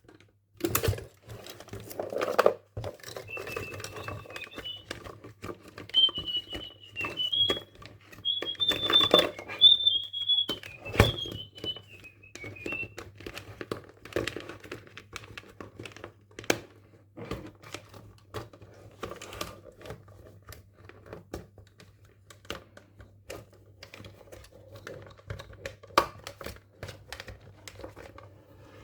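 Toy packaging being handled: crinkling and tearing with many sharp clicks. High, wavering chirps come in from about four to thirteen seconds in.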